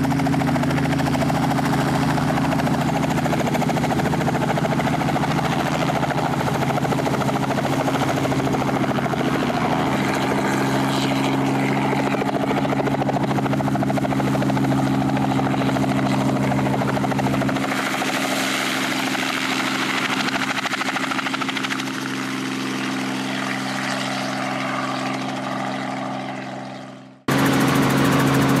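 Small two-blade helicopter running steadily, its engine and rotor going with a constant pitch. Near the end the sound fades briefly, then cuts abruptly to the same steady running heard from inside the cabin.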